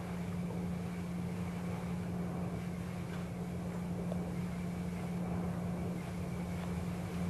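Room tone: a steady low hum with an even background hiss.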